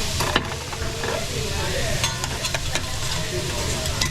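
Food sizzling on a hot teppanyaki griddle, with metal spatulas scraping and clicking against the steel plate; one sharp clack comes about a third of a second in, and a run of clicks follows about two seconds in.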